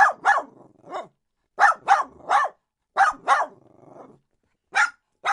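Dog barking: about ten short, sharp barks in quick runs of two or three, with brief pauses between runs.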